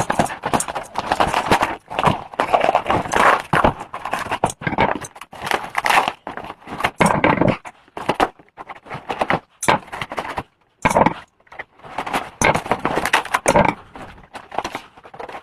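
Parcel packaging being handled and opened: irregular crinkling and rustling with short knocks and taps, in uneven bursts with brief pauses.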